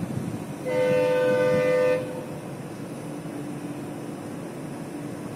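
Indian Railways locomotive horn sounding one steady blast of just over a second, over the train's steady low rumble.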